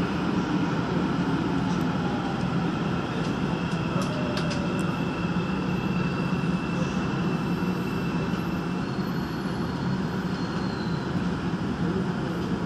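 Busan Metro Line 3 train running with a steady rumble and slowing as it pulls into an underground station. A thin high whine sounds for a few seconds in the middle.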